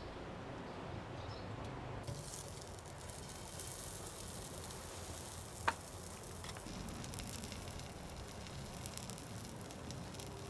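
Crackling and sizzling from a barbecue grill, starting about two seconds in, with a single sharp click about halfway through.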